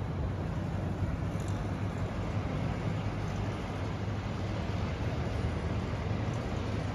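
Steady low rumble of road traffic, an even drone without distinct passes.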